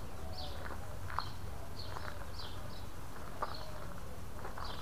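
A bird calling with a short, high chirp repeated about once every second or less, over soft footsteps on gravel.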